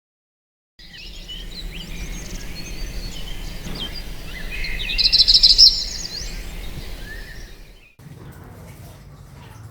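Birds chirping: a dense flurry of short, high chirps over a low hum. It starts abruptly about a second in, is loudest about five seconds in, and cuts off shortly before the end.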